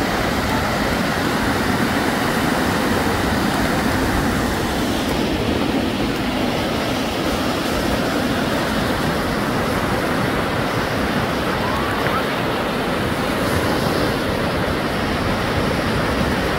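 Small waves breaking and washing up onto a sandy beach: a steady, even rush of surf.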